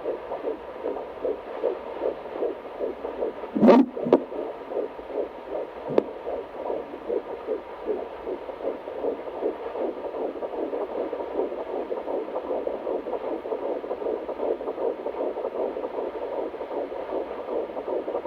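Fetal heartbeat through a handheld fetal Doppler's speaker: fast, rhythmic whooshing pulses at about two and a half beats a second, the quick rate of a baby's heart in the womb. A louder scraping whoosh cuts across the beat about four seconds in, and a short click comes about six seconds in.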